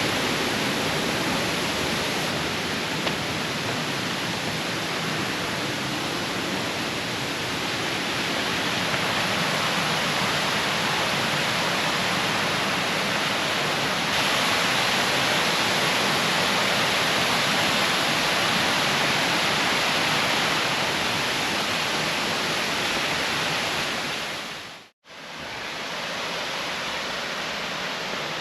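Steady rush of falling water from a waterfall. It fades out for a moment near the end and comes back.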